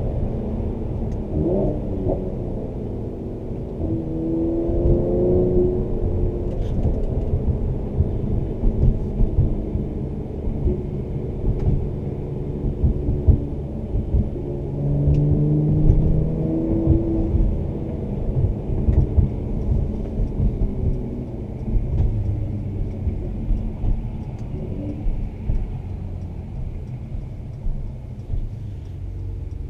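Mercedes-AMG C43's twin-turbo V6 through its performance exhaust, heard from inside the cabin, revving up and falling back again and again through gear changes under hard acceleration. A few sharp exhaust pops and crackles come in between.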